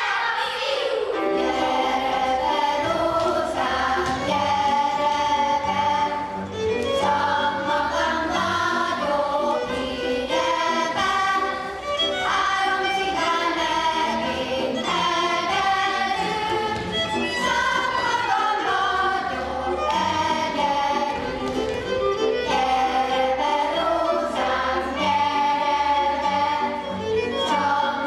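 A group of voices singing a Hungarian folk song for a circle dance, phrase after phrase at a steady pace.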